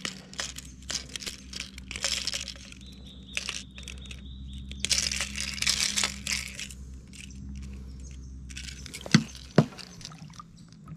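Irregular splashing and sloshing of water as a Murray cod is held at the surface while pliers work a lure's hooks out of its mouth, with two sharp knocks near the end.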